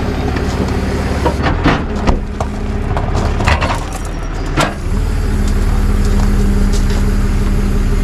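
A tow truck's engine idles steadily, its hum firming up and getting a little louder about five seconds in. Several short crunches and clicks, like steps on gravel, come over it in the first half.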